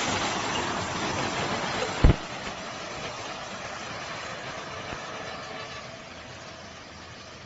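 Steady hiss of heavy rain falling, slowly fading, with a single low thump about two seconds in.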